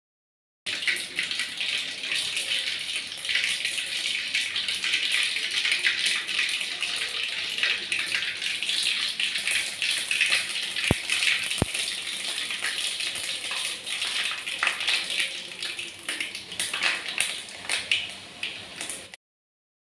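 Cooking oil sizzling and crackling as it heats in a kadai, a dense, steady mass of tiny pops. It starts abruptly just after the beginning and cuts off abruptly near the end.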